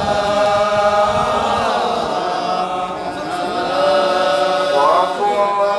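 Sufi dhikr: several voices chanting together in long held notes, the pitch sliding between them.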